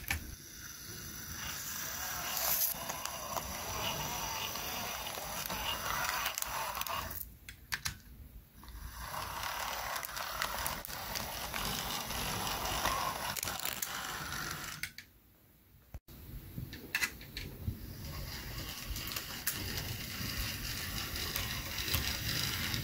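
Brass OO-gauge GWR 8750 pannier tank model locomotive running on track: the steady whirr of its electric motor and gear train. The noise breaks off twice for a moment, about a third and two-thirds of the way through.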